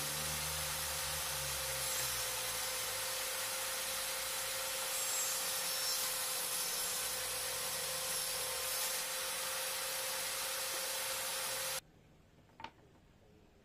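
A power tool working wood, a steady noisy rasp with a constant hum underneath. It cuts off abruptly near the end, and two faint clicks follow.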